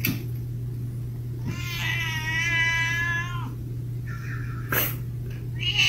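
A cat meowing: one long, drawn-out meow lasting about two seconds, then a short click, and another meow starting right at the end, over a steady low hum.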